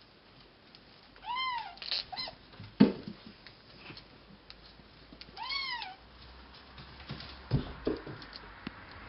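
Bengal kitten meowing twice, short high calls that rise then fall in pitch, about a second and a half in and again about five seconds in, with a brief squeak just after the first. Scattered knocks and thumps, the loudest a sharp one about three seconds in.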